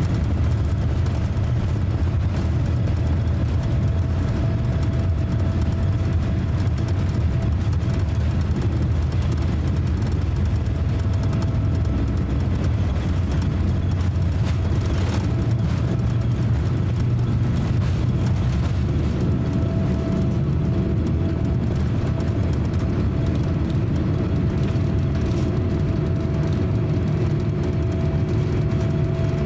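Boeing 787-9 cabin noise during the takeoff roll: jet engines at takeoff thrust over a low, steady rumble, the airliner lifting off before the end. A steady hum runs on top, and a second, lower-pitched tone joins about two-thirds of the way through.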